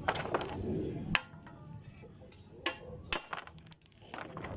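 Metal clinks and knocks while a bicycle headset is being taken apart: a scraping rustle for about the first second, then several separate sharp taps, one of them ringing briefly near the end.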